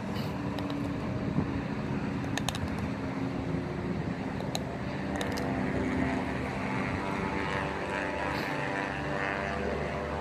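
Steady motor-vehicle engine noise, with a hum that shifts in pitch in the second half and a few faint clicks.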